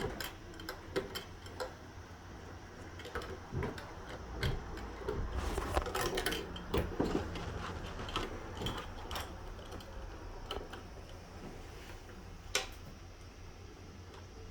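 Scattered light clicks and knocks of objects being handled, over a low rumble, with one sharper click near the end.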